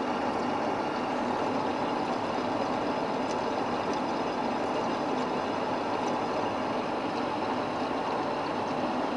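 1B61 metal lathe under heavy load, turning a St35 steel blank at a 10 mm depth of cut per pass with the spindle at 250 rpm and 0.15 feed: a steady, unbroken drone of motor, gearbox and cutting.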